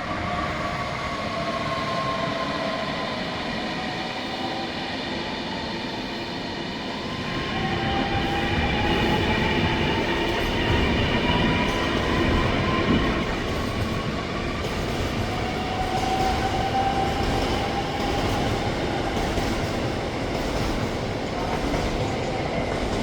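Newag Griffin (EU200) electric locomotive hauling a passenger train into a station: a steady rumble of wheels and coaches, with whining tones that glide slowly down and up in pitch. It grows louder about eight seconds in.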